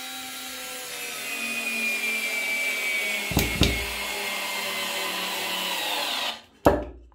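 Parkside PSSA 4 B2 4 V cordless screwdriver driving a screw into a wooden block: its small geared motor runs steadily with a whine that sags slightly in pitch as it works under load. It gives two sharp clicks a little past three seconds in, cuts off about six seconds in, and a single knock follows.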